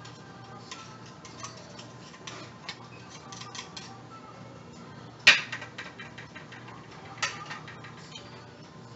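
Steamed oyster shells and a knife clicking and scraping against a plate as the oysters are handled, with a sharp clack about five seconds in and another just after seven.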